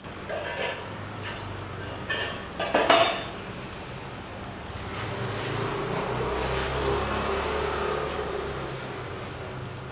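Stainless steel pots and containers clinking and clanking as they are set down on a cabinet shelf, with the loudest metallic clank about three seconds in. After that comes a longer stretch of rustling as a wrapped pot is handled.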